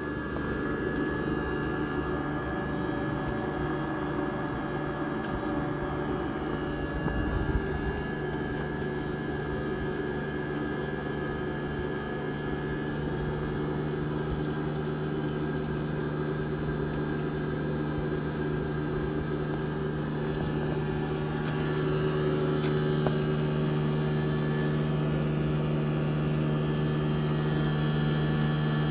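Iced-up outdoor heat pump unit running a defrost cycle with its fan stopped: a steady hum from the compressor, with one strong low tone and several higher ones, getting a little louder about 22 seconds in.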